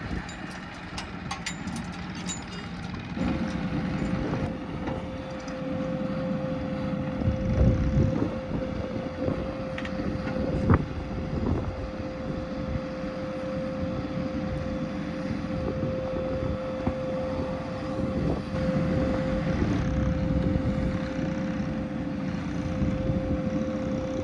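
Diesel engine of heavy earthmoving machinery running under work, with a steady whine coming in about three seconds in and holding throughout. A few louder knocks stand out near the middle.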